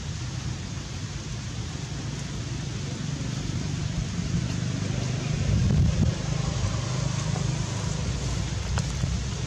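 Steady outdoor background noise: a low, fluttering rumble with hiss above it, swelling a little about halfway through.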